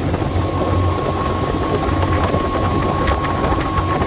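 Outboard motor driving a 16 ft aluminum Lund boat at cruising speed, about 25 mph: a steady, loud engine drone with a thin steady whine above it, and wind buffeting the microphone.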